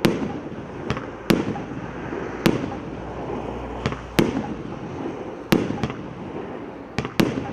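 Primed Pyrotechnics PR209A Water firework cake firing a series of shots: a sharp bang about every second, some coming in quick pairs, with a steady noisy haze between them.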